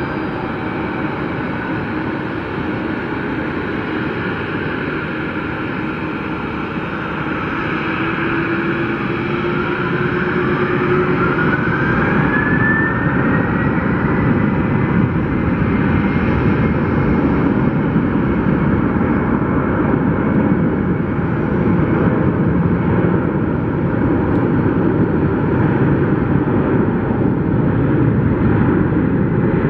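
Boeing 767-300ER's twin turbofan engines spooling up for takeoff. About a third of the way in, a whine rises in pitch over about five seconds as the engine noise grows louder. The engines then hold a steady, loud takeoff-thrust noise.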